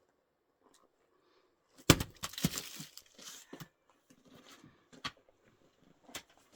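An axe strikes a firewood log with one sharp, loud blow about two seconds in. It is followed by a second or so of cracking and clattering wood, then a couple of lighter knocks near the end.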